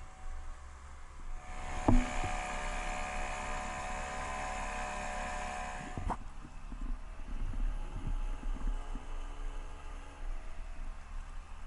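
A steady mechanical whirring, like a small motor, starts with a click and runs for about four seconds before cutting off with another click.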